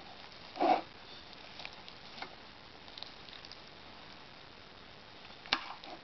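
Metal spoon stirring apple slices and oat flakes in a metal pot: a short soft scoop about half a second in, a few faint clicks, and a sharp clink of spoon on pot near the end.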